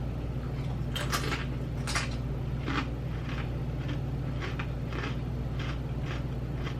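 A crunchy chip being bitten and chewed close to the microphone: a few loud crunches in the first three seconds, then a steady run of softer chewing crunches about two a second.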